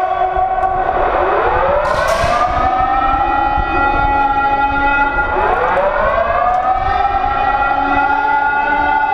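A wailing siren that rises in pitch over about a second, holds, and then starts a new rise about every four seconds.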